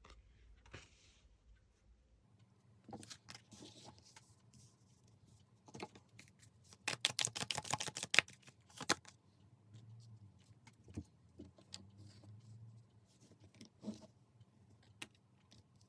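Tarot cards being handled and shuffled: scattered light clicks and rustles, with a dense run of rapid card clicks about seven to nine seconds in.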